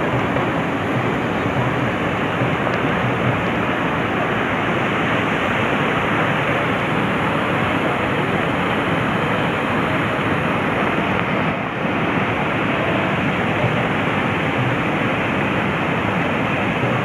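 Waterfall, a loud steady rush of cascading water.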